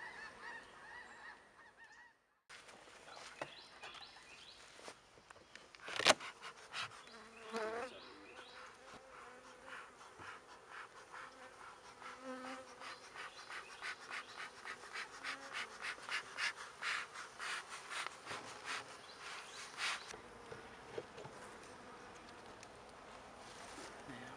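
Honeybees buzzing around an opened hive, with a sharp crack about six seconds in and a long stretch of quick ticking and crackling in the middle as the hive's wooden lid and frames are handled.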